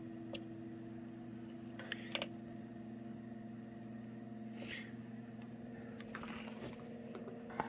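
Ninja Woodfire outdoor grill's fan running with a steady hum, with a few light clicks as buttons on its control panel are pressed to relight freshly added wood pellets.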